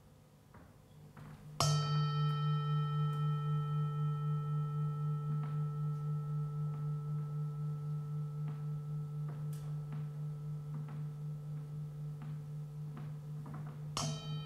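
A struck metal bell-like instrument: one low strike about a second and a half in rings on, wobbling in loudness about four times a second, and slowly fades. A second strike comes near the end. Faint small clicks and taps sound in between.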